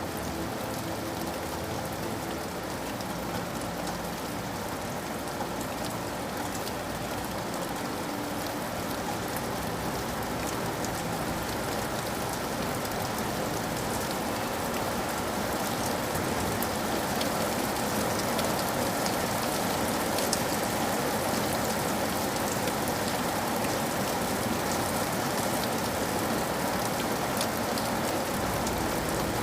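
Steady rain falling, a constant hiss with fine drop patter, growing slightly heavier about halfway through.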